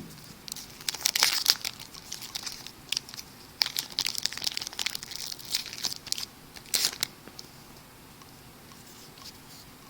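Baseball card pack wrapper being torn open and crinkled, in a series of irregular crackling rips over the first seven seconds, then quieter rustling near the end.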